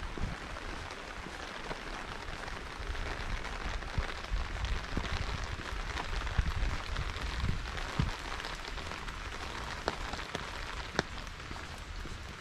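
Steady hiss of rain falling, with scattered sharp ticks of single drops and occasional low thumps.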